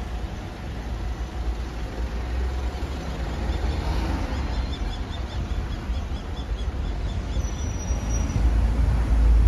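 Street traffic: cars passing and waiting on a city street, a steady low rumble that swells near the end, with faint high chirps in the middle.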